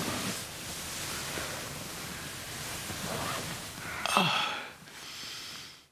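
A man breathing hard and groaning as he lies in bed. About four seconds in there is a sudden loud gasp that drops in pitch, and the sound cuts off just before the end.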